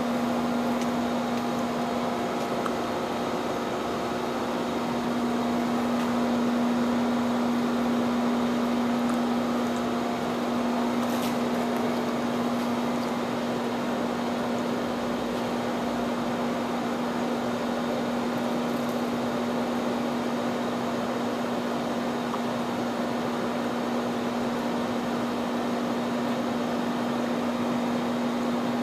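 Steady machinery hum holding one constant low tone, unchanging in level.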